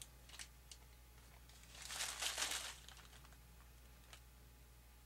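Faint handling of small screws: a few light clicks and a louder rustle of about a second, about two seconds in, over a steady low hum.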